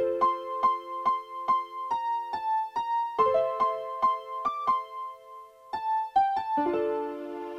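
Citizen 'THE ALARM CLOCK' playing one of its 32-voice polyphonic alarm melodies through its speaker, an electric-piano-like tune: held chords under a repeated high note a little over twice a second, the chord changing about three seconds in and again near the end.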